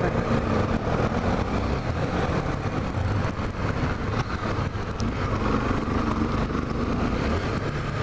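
Honda XRE 300's single-cylinder engine running at low speed while the motorcycle filters between lines of cars, mixed with steady surrounding traffic noise.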